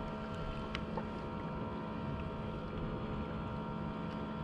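Steady sea and wind noise around a fishing kayak on open water, with a faint constant hum and a couple of light clicks about a second in.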